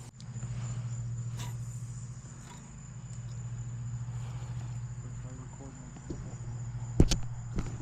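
Insects trilling steadily in one high, thin tone over a low steady hum, with a few sharp clicks, the loudest two near the end.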